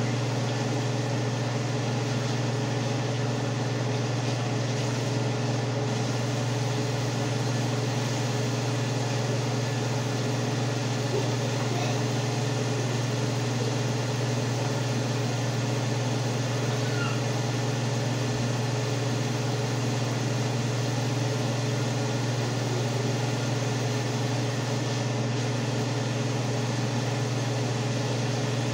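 Steady low hum of a fan motor running, with an even hiss over it.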